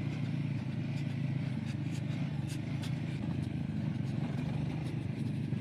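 Motorcycle engine running steadily under way, with light scattered ticks and rattles over the drone.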